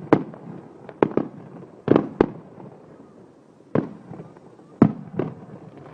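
Fireworks going off: about eight sharp bangs at uneven intervals, some in quick pairs.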